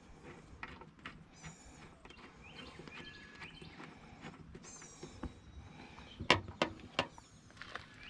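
Birds chirping in short, repeated falling calls, with three sharp clicks a little past six seconds in, the loudest sounds, made while hood latch parts are being fitted.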